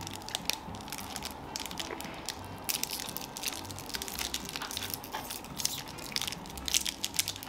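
Sour candies being chewed and crunched close to the microphone, in many short, irregular cracks, with the crinkle of small plastic candy wrappers being opened.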